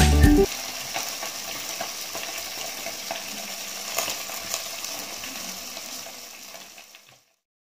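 Background music stops about half a second in, leaving a steady crackling hiss with scattered small ticks that fades away near the end.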